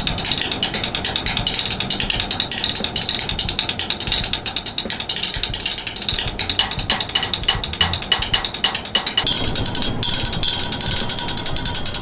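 Japanese oak 5A drumsticks drumming fast rolls on a metal railing: a dense, rapid stream of sharp wooden clicks that opens out into separate strokes a little past the middle, then packs tight again.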